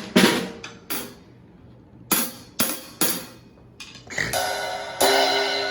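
Drum kit played with sticks: a few separate, unhurried drum strokes, then near the end a cymbal struck and left ringing.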